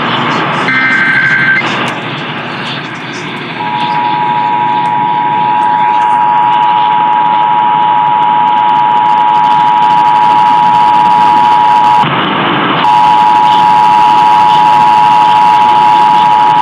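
Emergency Alert System test over AM radio: the last burst of the screeching digital header data ends about a second and a half in. After a couple of seconds of static, the steady two-tone attention signal starts and holds, dropping out briefly about twelve seconds in, all over a bed of AM static hiss.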